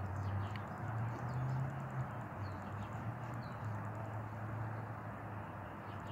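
Outdoor background: a steady low hum and rumble, with a few faint bird chirps.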